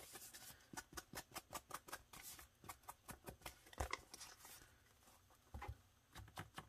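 Foam ink blending tool dabbed and swiped quickly along the edges of a paper envelope: a faint run of short scuffing strokes, about four or five a second, with one louder knock about four seconds in and fewer strokes after it.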